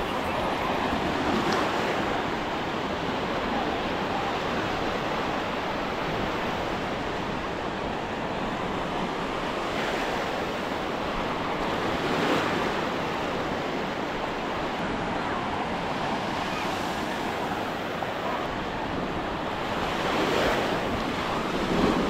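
Ocean surf washing onto a beach: a steady rush of breaking waves that swells louder a few times, with some wind buffeting the microphone.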